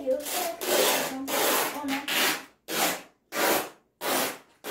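Packing tape being pulled off its roll in quick rasping strips, about seven pulls in a row, with short silent gaps between the later ones.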